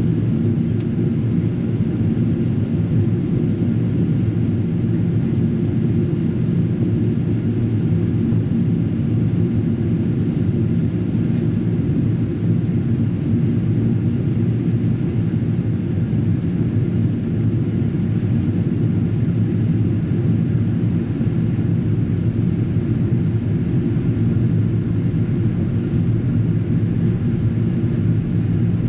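Steady cabin rumble of a Boeing 777-200ER in flight: engine and airflow noise heard inside the passenger cabin from a window seat over the wing, even and unchanging.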